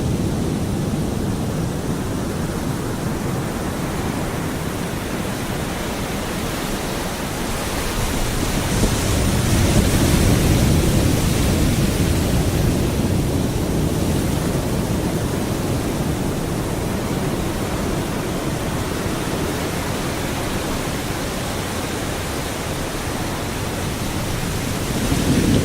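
Pacific Ocean surf breaking on a beach, with wind and blowing sand: a continuous deep wash of noise that swells into a louder wave crash about ten seconds in, then eases back.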